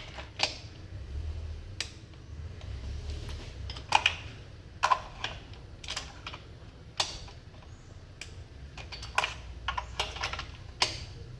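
Click-type torque wrench breaking over with sharp metallic clicks, plus knocks from the wrench and socket, at irregular intervals as the spark plugs are re-torqued one by one. Each click marks a plug reaching its set torque.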